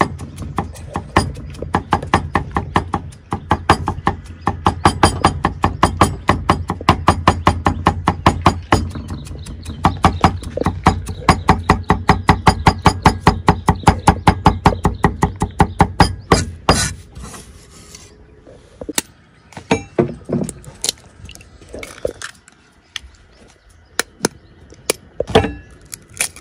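Cleaver chopping garlic on a round wooden chopping block: fast, steady chops, several a second, that stop about seventeen seconds in, followed by a few scattered knocks and clicks.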